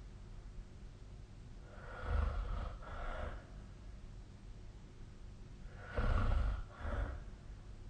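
A sleeping person snoring: two snores about four seconds apart, each a rough snort followed at once by a shorter second sound.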